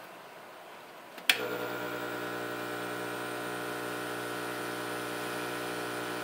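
Hot air blower switched on with a sharp click about a second in, then its fan running with a steady whir. It is set to about 200 °C to heat the phone's touchscreen and soften its glue.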